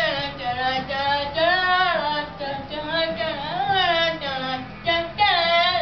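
A high voice singing a melody with held notes that slide up and down.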